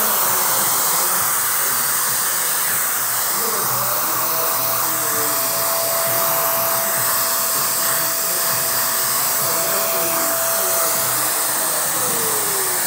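Stylecraft Cosmic blow dryer with a diffuser attachment running steadily, blowing air onto hair. A thin steady tone comes in about four seconds in and slides down in pitch near the end.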